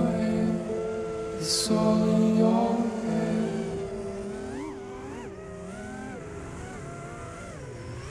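FPV racing drone's motors whining, their pitch sweeping up and down several times with the throttle through the middle and later part, over background music that is strongest in the first few seconds.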